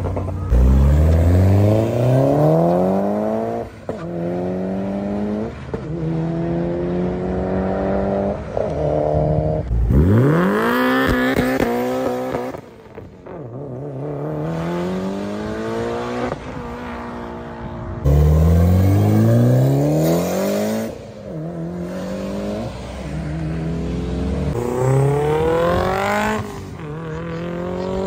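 Tuned performance cars accelerating hard, each engine note climbing steeply in pitch and dropping at every upshift, several runs in a row with abrupt changes between them.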